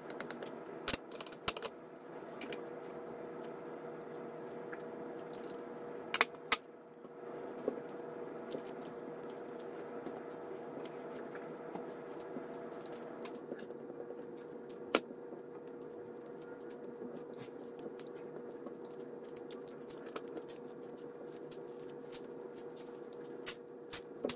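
Spatula and spoon clicking and scraping against an enameled cast-iron pot as chunky peach and mango filling is stirred, with a few sharper knocks, over a steady hum.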